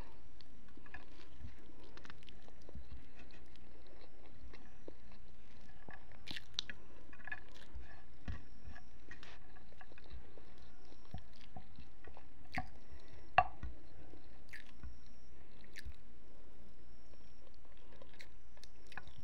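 A person chewing food eaten by hand, with scattered soft clicks from the mouth and one sharp, louder click about thirteen seconds in.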